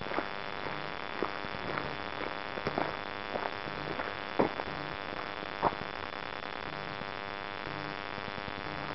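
Footsteps crunching on a stony dirt track: a few irregular steps that stop about six seconds in, over a steady hiss.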